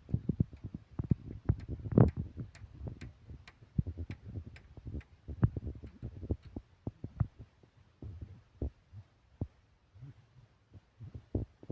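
Irregular hard knocks and clacks of hand tools at work on stone and concrete, several a second, thinning out after about eight seconds.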